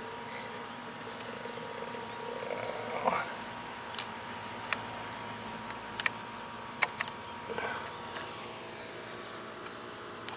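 Insects trilling steadily and high, with a few sharp clicks and two short rising chirps, the louder one about three seconds in.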